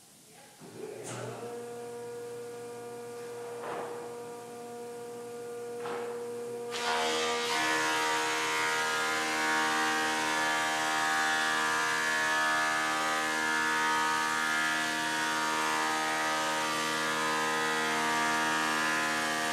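Delta DC-580 20-inch planer, with a 5 hp single-phase motor, starting up and running with a steady hum, with a few knocks in the first six seconds. About seven seconds in the sound becomes much louder and harsher as a red oak board feeds into the cutterhead, and it stays at that level as the board is planed.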